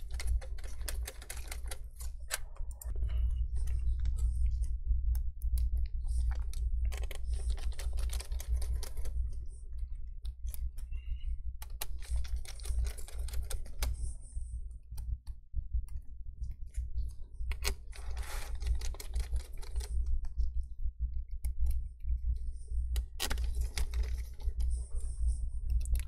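Small clicks and rustling of nitrile-gloved hands handling ribbon cables, connectors and the plastic chassis inside an opened laptop. The handling comes in patches a second or two long every few seconds, over a low steady hum.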